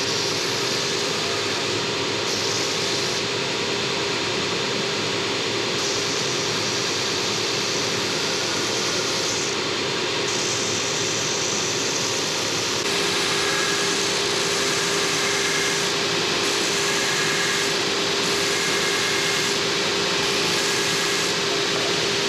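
Stationary belt sander running steadily while the hub end of a wooden wagon-wheel spoke is pressed against the belt and shaped, the grinding hiss shifting each time the spoke is moved on the belt.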